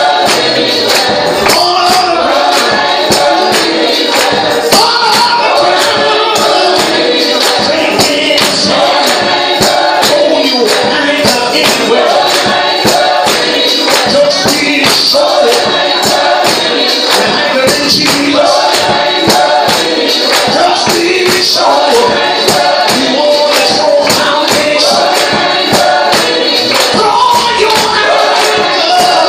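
Gospel vocal group singing together, several men's and women's voices, with hands clapping a steady beat.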